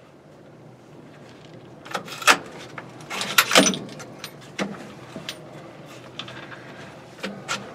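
Close handling noise of gear: an irregular series of sharp clicks, knocks and metallic clinks, loudest about two and three and a half seconds in, over a faint hiss.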